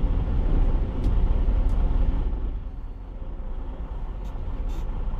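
Semi-truck diesel engine running at low speed as the truck creeps forward into a shop bay, a steady low rumble that eases off about two and a half seconds in.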